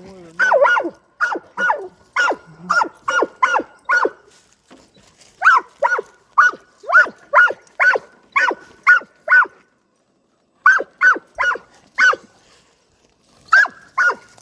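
A dog barking repeatedly, about two barks a second, in four runs broken by short pauses.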